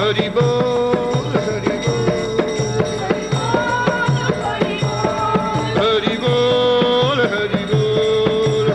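Devotional kirtan music: long held melody notes over a steady hand-drum beat with sharp percussive clicks.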